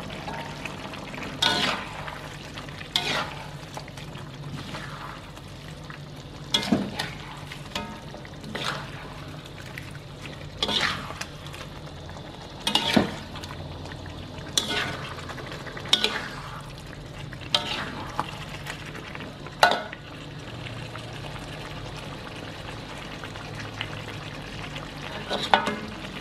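Metal spatula scraping and knocking against a metal wok as a saucy tuna and basil stir-fry is turned over, a stroke every second or two. Under it the food keeps up a steady sizzle as it cooks.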